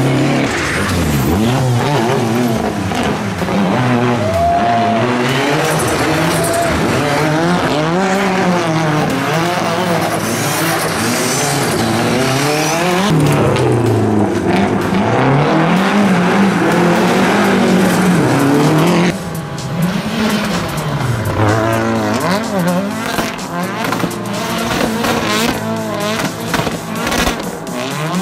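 Rally car engine revving hard, its pitch rising and falling over and over, with tyres squealing. The sound changes abruptly about two-thirds of the way through, as at a cut to another run.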